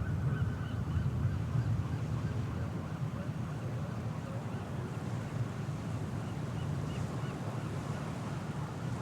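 Waterfront ambience: a steady low rumble with faint, short, high calls that come in clusters near the start and again about six seconds in.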